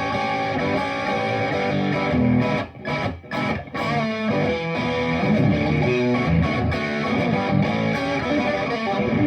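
Electric guitar, a PRS Silver Sky played straight into a Friedman Little Sister combo amp, with a dry tone and no delay or reverb. Continuous riffing, with a few short stops about three seconds in.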